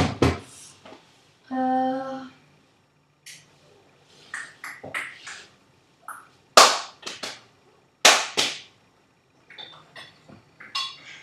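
Irregular sharp knocks and clatters of kitchen utensils and dishes, loudest at the start and again a little past halfway. About two seconds in there is a short steady pitched tone.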